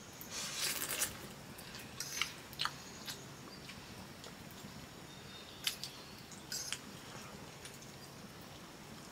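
People eating buff noodles: a few irregular short chewing and mouth sounds, clustered in the first few seconds and again around the middle, with a quieter stretch toward the end.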